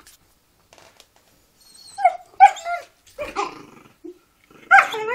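Dog growling and giving short high-pitched yelping barks in a squabble over a cow hoof chew. The yelps start about two seconds in and come again near the end, with a low rasping growl under them.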